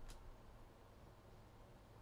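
Near silence: room tone with a faint low hum and one faint click right at the start.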